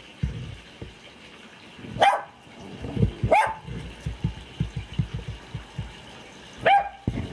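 A dog barking, three or four short sharp barks spaced a second or more apart, with low thuds and rumbling between them.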